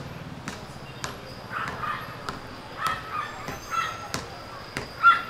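A small dog barking in a string of short, sharp yaps, the loudest about five seconds in.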